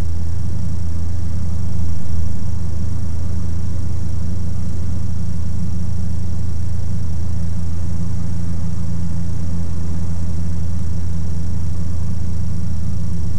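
Ikarus C42 microlight's engine and propeller droning steadily in cruise flight, heard from the cockpit: a low, even drone that swells briefly about two seconds in.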